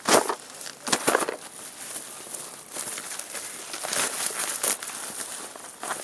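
Packaging, likely plastic wrap or bags, rustling and crinkling as it is handled and opened, with sharper crackles near the start, about a second in, and around four seconds in.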